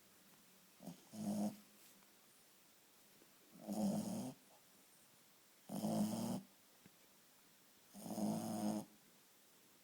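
Shih Tzu snoring in its sleep: four short snores evenly spaced about two seconds apart.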